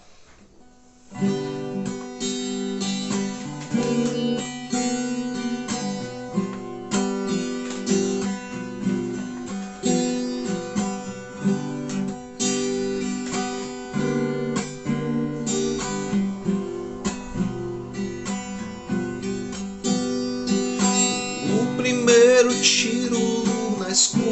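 Acoustic guitar playing strummed chords, starting about a second in; near the end a voice begins singing over it.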